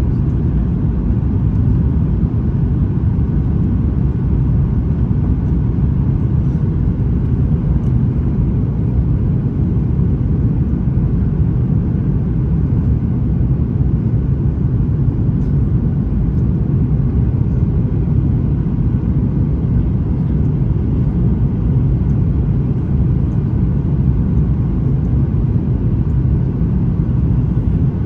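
Steady low roar of a Boeing 737 MAX 9 airliner, its engines and airflow heard from inside the cabin, even and unbroken throughout.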